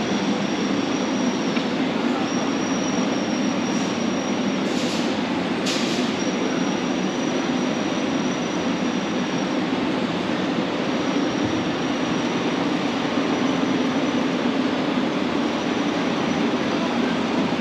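Steady rumbling ambience of a large warehouse store, with a faint high whine that comes and goes and two brief clicks about five and six seconds in.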